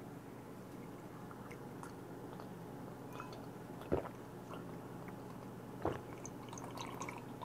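Faint swallowing while a vodka and grapefruit-juice highball is drunk from a glass mug: two soft gulps, about four and six seconds in, over a low steady hum.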